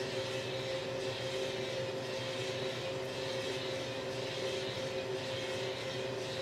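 Small drum coffee roaster running steadily during a roast: an even machine hum with two held tones over a constant hiss.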